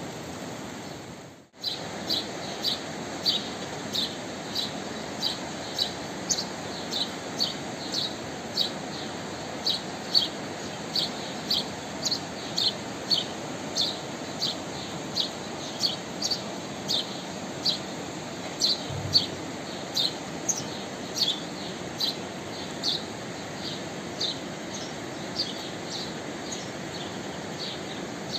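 A bird calling over and over with short, high chirps, evenly repeated about three every two seconds, over a steady background hiss. The sound drops out briefly just before the chirps begin, about a second and a half in.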